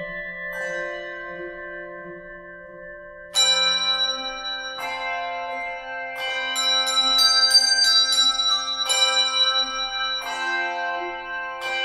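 A handbell choir ringing brass handbells in chords. The ringing fades over the first few seconds, then a loud chord is struck a little over three seconds in, followed by a run of further chords, some in quick succession, each left ringing.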